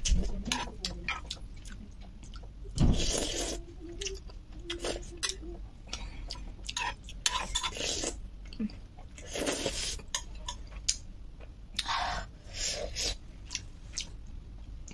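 Someone eating spicy noodles: chewing, with irregular clicks and scrapes of cutlery against a dish.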